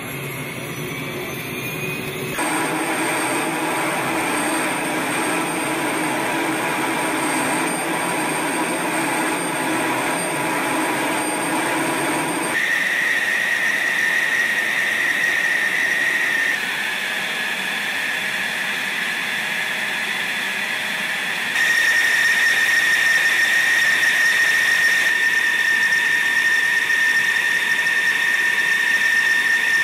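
Jet engines of F-16 fighters running on the flight line: a steady high-pitched turbine whine over a rushing noise, which jumps in pitch and loudness at several abrupt cuts.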